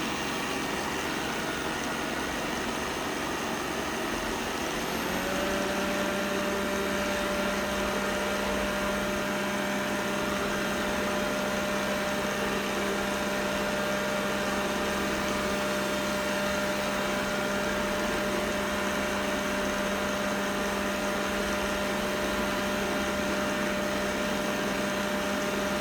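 Roborock S6 robot vacuum running with a steady buzzing noise. About five seconds in, its motor pitch rises and the sound gets a little louder, then it holds steady at the higher pitch.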